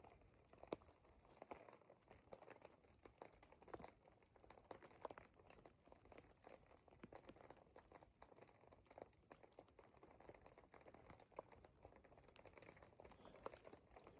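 Near silence with faint, irregular light ticks, the patter of falling snow on a tarp.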